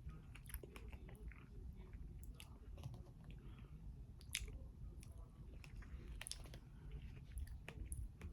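A person chewing and biting into brownies with strawberries and Greek yogurt, with many small wet mouth clicks scattered irregularly; one sharper click about four seconds in.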